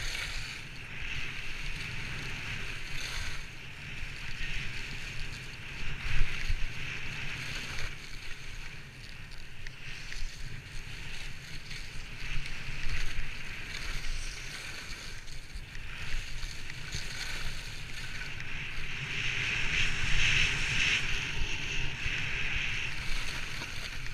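Skis scraping and carving over packed, chopped-up snow, a continuous hiss that swells and fades with each turn and is loudest about 19 to 22 seconds in, with wind rumbling on the microphone underneath.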